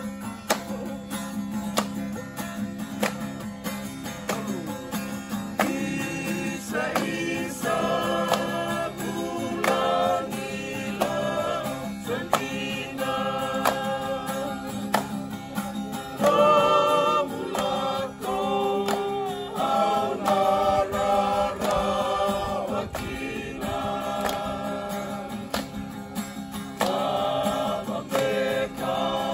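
A group of men and women singing a farewell song together to a strummed acoustic guitar. The guitar plays alone for the first few seconds, and the voices come in about six seconds in.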